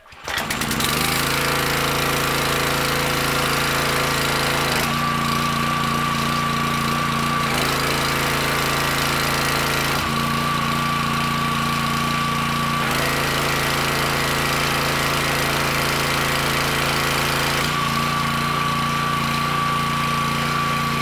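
Small gas engine of a pressure washer catching at once on a pull of the starter cord and running steadily. Its note changes several times as the spray wand's trigger is squeezed and released, with the rebuilt unloader valve now seeming to let off the pressure as it should.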